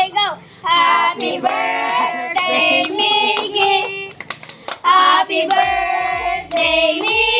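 Children and a woman singing a song together while hands clap along in time. From a little past halfway a low, steady thudding beat joins in.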